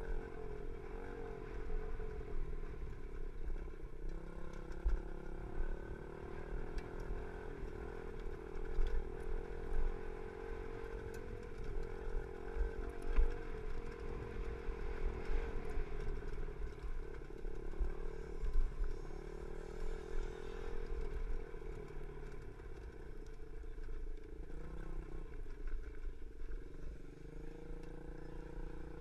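Small 50cc four-stroke pee-wee dirt bike engine running under throttle, its pitch wavering up and down as the rider works the throttle. Low wind rumble on the microphone and a few sharp knocks come in as the bike goes over the bumpy track.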